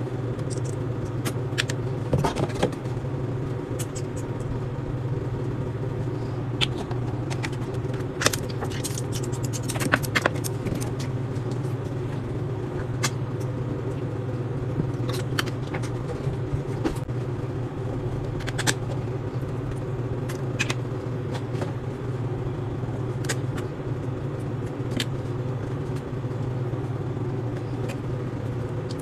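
A steady low hum with scattered light clicks and taps, most of them about two seconds in and again around eight to ten seconds in.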